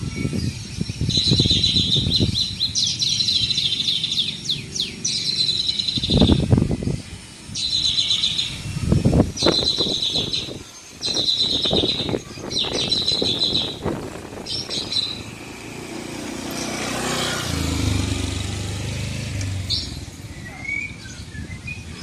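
Small caged parrots chirping: rapid, high trilled phrases about a second long, repeated about seven times until about 15 s in. Short low rumbles come between the phrases, and a steadier low rumble follows near the end.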